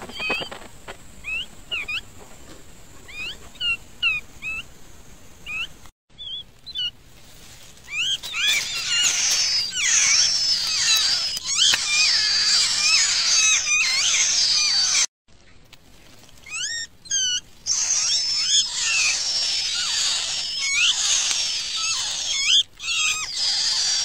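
Nestling songbirds begging. At first there are scattered single high chirps. Then comes a dense, rapid chorus of shrill begging calls from several chicks, broken once by a brief gap.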